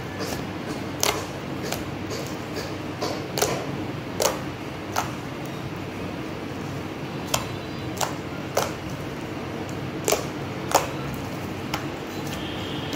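Thick slime mixed with air-dry clay being stretched and squished by hand, giving off irregular sharp clicks and pops as trapped air pockets burst, some a second or two apart and a few close together, over steady background noise.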